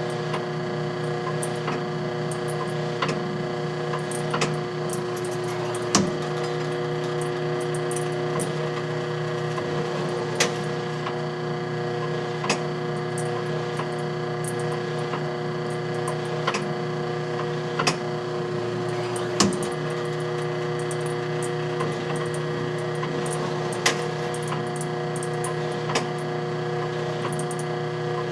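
Vintage black-and-white photobooth's machinery running: an electric motor's steady hum with sharp mechanical clicks and clacks at irregular intervals of a few seconds.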